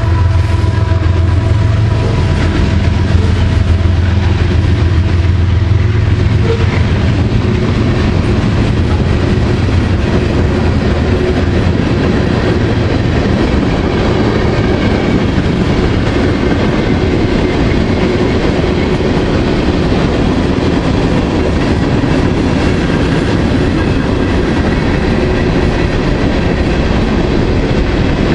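Freight train rolling slowly past a grade crossing: a steady rumble and clatter of its cars' wheels on the rails.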